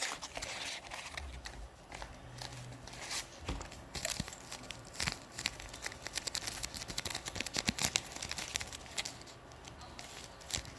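Squishy toys being squeezed and crumpled in the hands, making rapid, irregular crinkling and crackling with sharp clicks.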